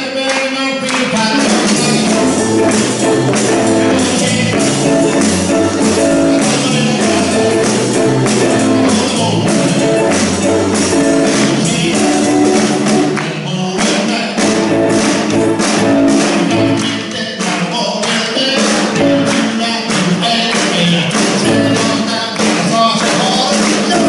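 Live band playing an upbeat song: a male singer with acoustic guitar, other guitars, keyboard and drums played with sticks, with sung vocals over a steady beat. The whole band runs through a single amplifier.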